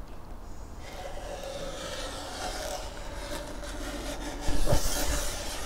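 Scraping and rubbing across a wooden radio cabinet top, lifting old finish softened by chemical stripper: a continuous scratchy rubbing that grows louder for a moment about four and a half seconds in.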